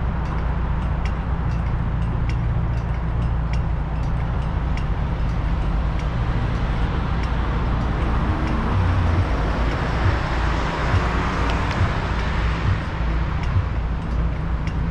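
Road traffic heard from a car waiting at a red light: a steady low rumble with a regular light ticking about twice a second. Another car passes close in front about ten to twelve seconds in, its road noise swelling and fading.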